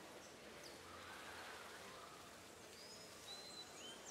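Quiet outdoor ambience with small birds chirping: short, thin, high whistles, a few of them falling in pitch, mostly in the second half.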